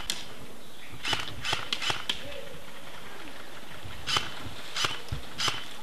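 Airsoft guns firing in sharp, scattered clicks and snaps: a quick run of about six around a second in, then single shots a few seconds later.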